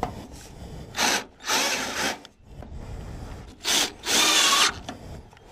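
Cordless drill driving screws into a downspout, its motor whining in four short runs, two near the start and two more later on.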